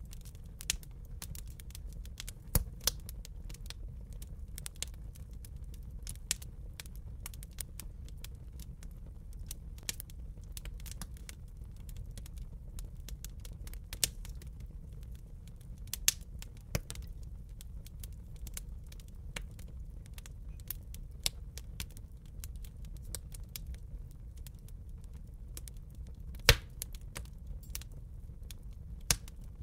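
Fire crackling: irregular sharp pops and crackles over a steady low rumble, with one louder pop late on.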